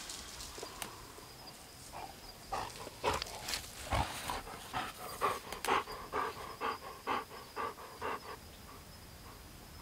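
A dog panting quickly, about three breaths a second. It starts about two seconds in and stops a little before the end.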